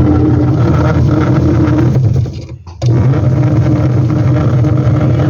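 LG twin-tub washing machine's wash transmission running with a loud, steady mechanical grinding noise from its gears, the sign of a damaged, worn-out transmission. The noise drops out briefly about two seconds in, then resumes.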